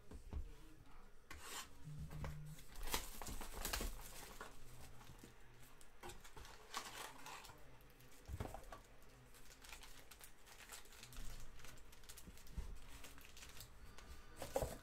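Cellophane shrink wrap being torn off a box of trading cards, then foil-wrapped card packs crinkling and clicking as they are handled, in faint irregular bursts.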